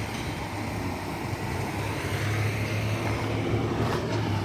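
A motor vehicle's engine running steadily, a low hum over a wash of outdoor noise that grows slightly louder about halfway through.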